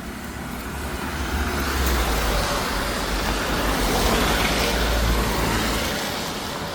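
A motor vehicle passing close by in street traffic: engine rumble and tyre noise swell up over a few seconds and then fade.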